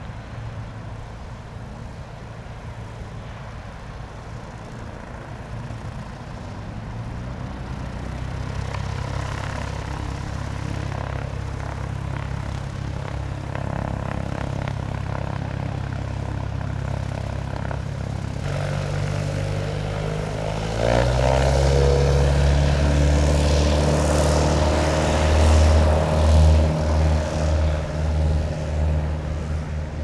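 Cessna 172P Skyhawk's four-cylinder Lycoming piston engine and propeller running as the plane taxis on the ground. About two-thirds of the way through the engine speeds up and gets clearly louder, and the level wavers near the end.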